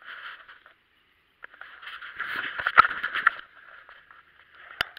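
Dry fallen leaves rustling and crunching as someone moves through the leaf litter, with a few sharp handling knocks. The knocks are loudest near three seconds in, with another sharp one near the end. A brief quiet gap comes about a second in.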